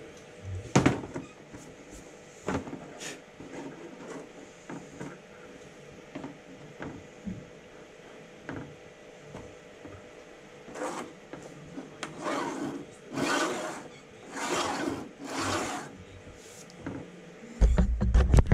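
A small plastic model-yacht vang track being handled and set down on a workbench: a few sharp clicks and knocks, then four short scraping rubs about a second apart. Near the end comes a loud low rumble of handling.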